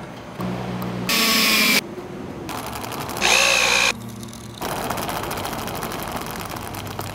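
A quick sequence of workshop power-tool sounds: a motor humming, then two short, loud bursts of a drill-type power tool running, the second with a rising whine, with quieter tool noise between and after.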